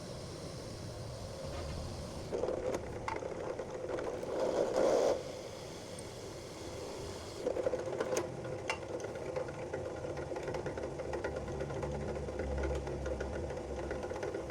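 A small electric motor or power tool running steadily, louder in two stretches, with a few sharp clicks.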